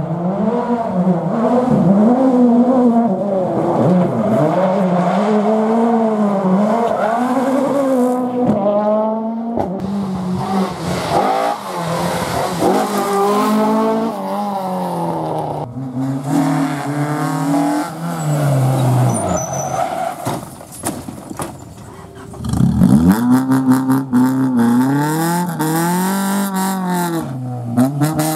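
Rally cars at full speed on a tarmac stage, engines revving hard and dropping back in pitch again and again through gear changes as they come through. The sound eases off briefly shortly after the middle, then comes back loud as a Honda Civic hatchback rally car arrives near the end.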